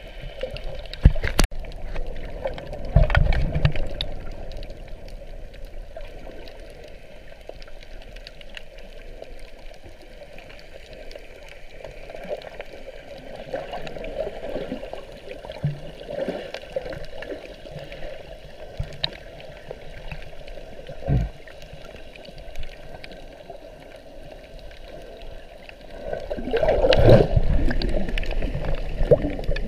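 Muffled underwater water noise picked up by a GoPro in its waterproof housing while snorkeling: a steady gurgling wash with a few sharp knocks, and a louder surge of rushing water near the end.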